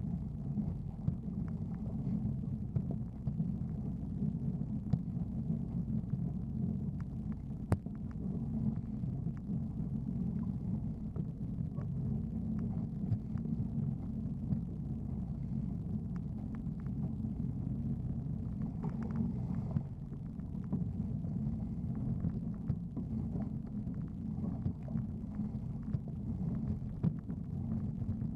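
Jet ski running at speed through choppy water: a steady, low, muffled rumble of engine and hull with water rushing past, and occasional sharp knocks as the hull slaps the chop.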